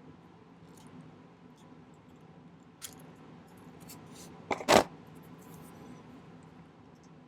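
Light metallic clicks from silver chain links and small tools being handled, with a sharp click a little under three seconds in and a louder double clack a little past halfway.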